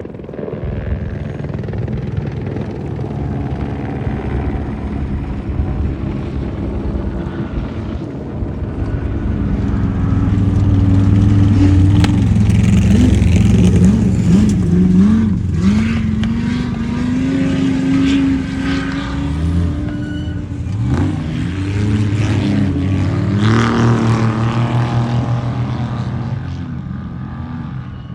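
Off-road race vehicle engine running hard and revving, its pitch rising and falling with quick throttle changes. It grows louder about a third of the way in and eases off near the end.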